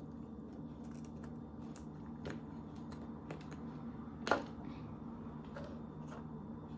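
Scattered light clicks and taps of small objects being handled on a table, with one sharper click a little over four seconds in, over a steady low hum.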